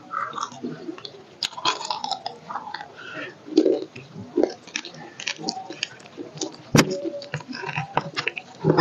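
Close-miked chewing and biting of roast chicken by two people eating with their hands: a run of short, sharp clicks and mouth noises, the sharpest about seven seconds in.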